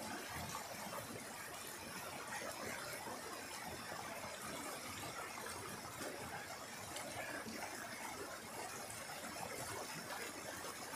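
Rocky mountain stream rushing steadily over a small cascade of whitewater.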